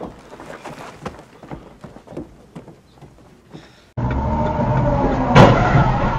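Dashcam recording inside a car: loud steady road and engine noise with a held tone, and a sharp bang about a second and a half in, as a semi-trailer truck cuts across just in front. Before that, about four seconds of faint knocks from a film scene.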